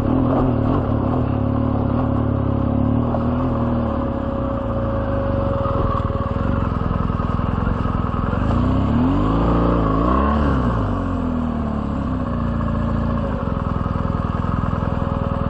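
BMW R1200GS flat-twin boxer engine running steadily at low revs on a rough dirt track, with the revs rising and falling back about nine to ten seconds in.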